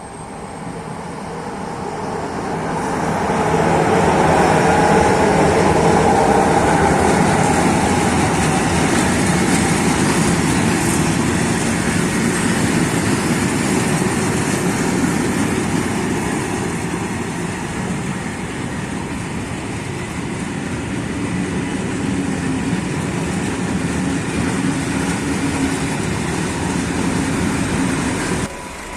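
A train passing close by: the noise builds over the first four seconds, stays steady and loud, and cuts off abruptly near the end.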